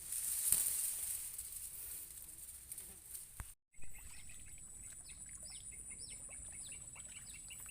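Hissing rustle for the first few seconds, then after a sudden cut a small bird calling over and over in short falling notes and chirps, over a steady high insect whine.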